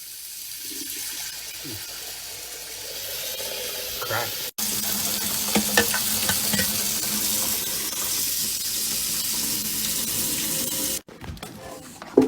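Water running steadily. It cuts off for a moment about four and a half seconds in, then runs on.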